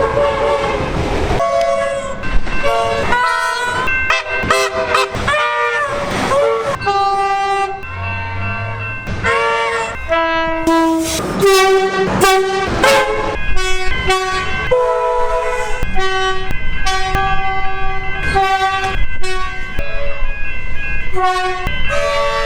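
Train horns sounding in a series of blasts, some held and some short, often several tones at once like a chime horn. Some notes bend in pitch, and about midway comes a quick run of short toots.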